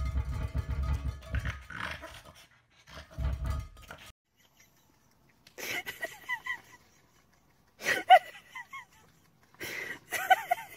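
A low rumbling noise for the first couple of seconds and again briefly, then, after a pause, a Shiba Inu howling with its head tipped back and a paper cup over its muzzle. The howls come in three short bouts of quick, wavering yips, each about a second long.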